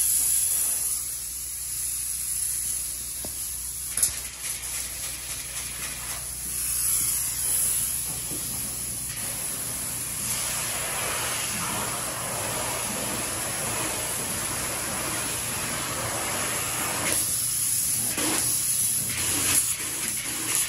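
Spray foam gun spraying foam insulation into wooden floor framing: a steady hiss that grows stronger about ten seconds in. A low steady hum runs underneath.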